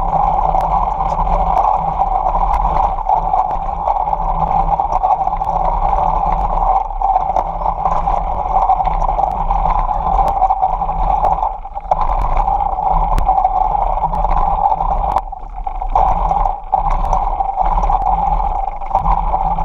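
Steady rumble of bicycle tyres rolling over asphalt, with wind, picked up by an action camera mounted on the handlebars of a child's bike; it briefly dips twice, a little past halfway.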